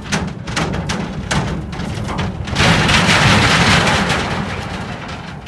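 Vehicles crossing the bridge overhead: a run of knocks and clatter, then a loud rumbling rush from about two and a half seconds in that slowly fades away.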